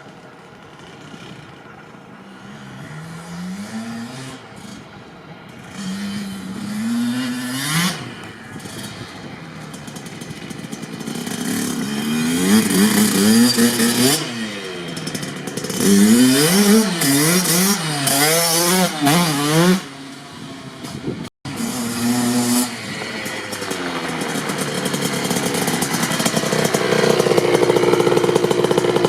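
Kawasaki KX65 single-cylinder two-stroke dirt bike engine revving as it is ridden, its pitch rising and falling over and over through acceleration and gear changes. It starts faint, is loudest through the middle, breaks off for an instant a little over two thirds in, and then grows louder again near the end.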